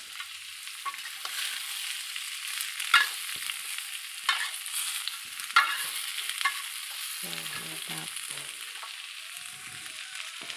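Diced tempe, shallots and garlic sizzling in oil in a small black wok while a metal spatula stirs them, scraping the pan and clacking against it a few times. The tempe is being fried until dry.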